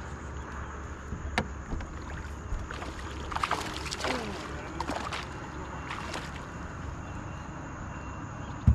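Handling noise aboard a small fishing boat on calm water: a steady low hum under scattered clicks and knocks, a few sliding chirps in the middle, and one heavy thump near the end.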